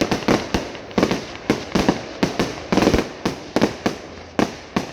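Fireworks display: aerial shells bursting in rapid succession, several sharp bangs a second, in clusters with brief gaps.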